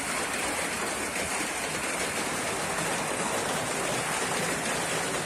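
Heavy rain and hail falling on a yard, a steady dense hiss of drops.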